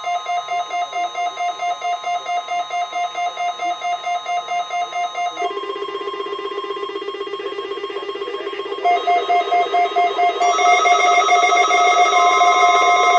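Weather radio receivers sounding their electronic alert alarms together, set off by the weekly test: rapid pulsed beeping, about four beeps a second. About five seconds in, the beeping gives way to a steadier, lower warbling tone. Near nine seconds the pulsed beeping returns and grows louder, with more overlapping tones joining toward the end.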